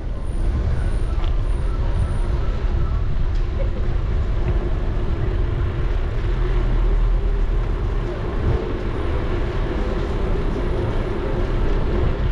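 Steady wind rumble on a bike-mounted action camera's microphone while riding, with tyres rolling on pavement and voices of passers-by.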